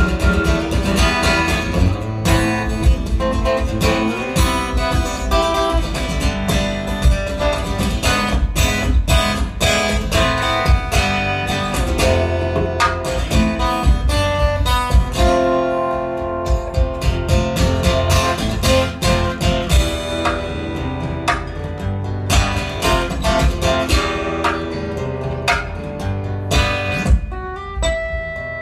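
Solo acoustic guitar played live: a continuous, busy run of plucked notes with sharp attacks over a steady low bass. It thins out near the end, where a single high note rings on.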